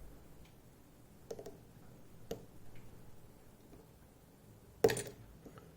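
Faint metallic ticks of a pick and tension tool working inside an EVVA ICS dimple lock cylinder: two small clicks, then one sharper, louder click near the end.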